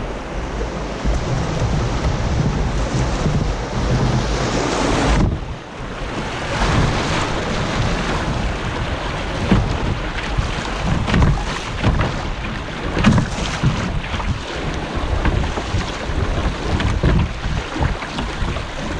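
Rushing, churning river water of a small rapid heard close beside a canoe, with wind buffeting the microphone. About five seconds in the sound changes abruptly to a choppier run of splashes.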